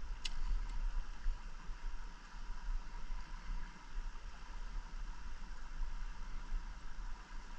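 The steady rush of a shallow stream riffle, with wind buffeting the microphone as a fluctuating low rumble. There is a single sharp click about a quarter second in.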